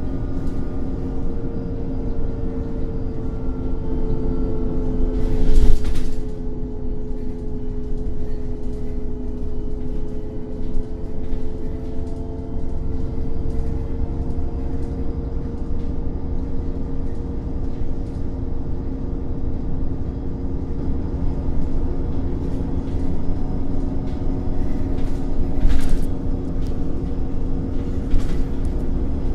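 Irisbus Cityclass city bus's Cursor 8 CNG straight-six engine running steadily, its pitch dipping slightly and coming back up. Two brief loud noise bursts break through, one about five seconds in and one near the end.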